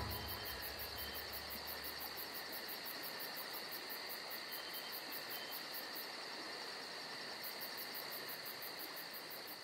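Crickets chirping: a steady high trill with a faster, even pulsing above it, fairly faint. A low rumble fades out over the first few seconds.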